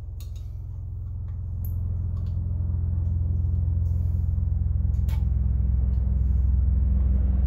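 Low, steady rumble of an aircraft flying over, growing louder throughout; it sounds most like a helicopter. A few light plastic clicks from parts being handled.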